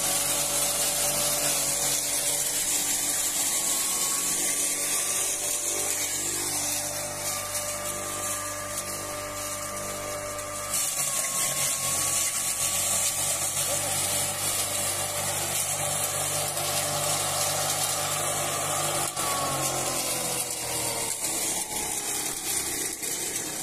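Electric fodder crusher with a 3 kW, 3000 rpm motor running and shredding dry fodder stalks: a steady whine over a strong hiss of chopped stalks blowing out. The hiss grows stronger about eleven seconds in, and the whine drops a little in pitch near the end.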